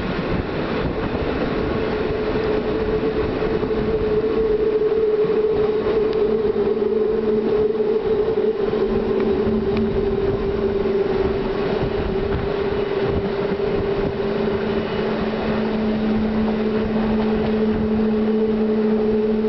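Train running at speed, heard from inside the carriage: a steady rush of running noise with a steady hum, and a second, lower hum joining about two-thirds of the way through.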